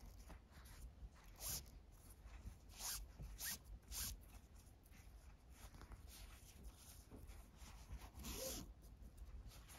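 Faint rustle of 4 mm nylon paracord being drawn through the loops of a braided collar, in a few short swishes, with the longest about eight seconds in.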